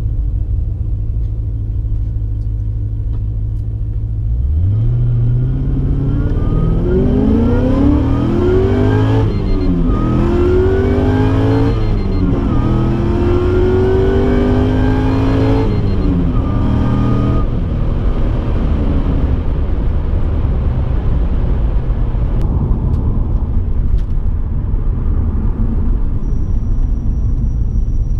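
Supercharged 6.0-litre LS2 V8 of a 2006 Pontiac GTO with a Magnuson TVS2300 blower, heard from inside the cabin. It cruises steadily, then about four seconds in accelerates hard through the gears: the revs climb three times, dropping at each of two upshifts. Past the middle it eases off and settles back to a steady cruise.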